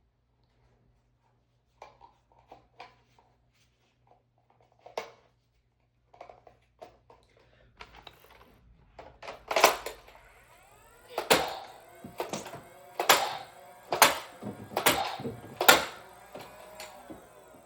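Nerf blaster in use: scattered light clicks, then from about ten seconds in a run of about seven sharp, loud shots, roughly one a second, each with a short ringing tail.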